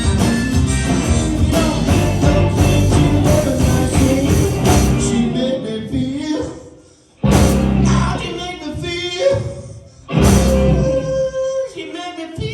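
Live blues band playing with singing. About five seconds in the band drops away, then strikes two loud chords about three seconds apart, each left to ring out.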